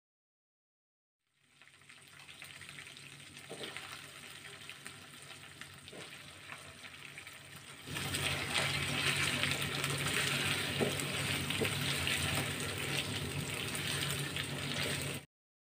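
Spices and mustard paste sizzling in hot mustard oil in a non-stick pan while a silicone spatula stirs them. About eight seconds in the frying grows louder as the salted raw mango pieces are in the oil and being stirred. The sound cuts off suddenly near the end.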